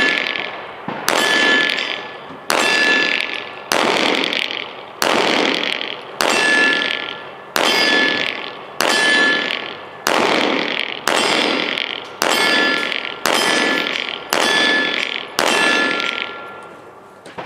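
Steel target ringing as it is struck again and again, about thirteen hits at a steady pace of roughly one a second, each ringing out with a bell-like tone before the next.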